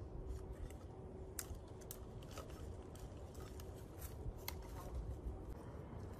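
Dry branches and twigs being gathered and handled: scattered sharp cracks and snaps, with rustling of the dry wood.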